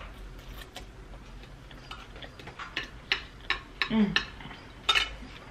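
Close-miked chewing of a mouthful of hash browns: quiet at first, then a run of short sharp mouth clicks from about halfway, with a brief closed-mouth hum about four seconds in.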